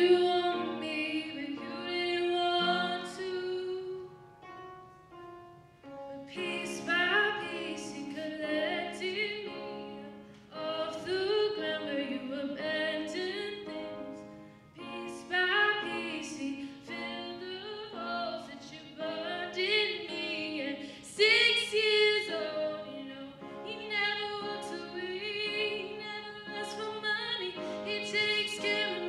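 A young woman singing a slow song, accompanying herself on an upright piano. The sung phrases have a brief lull about four seconds in.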